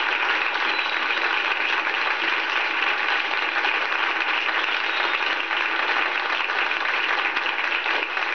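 Live audience applauding in a steady, even clatter of clapping after a punchline.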